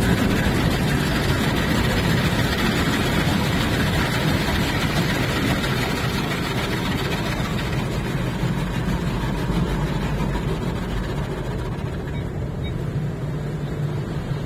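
Tunnel car wash heard from inside a car's cabin: a steady rush of water spray on the car over a constant low hum of machinery. The hissing water noise thins after about six seconds.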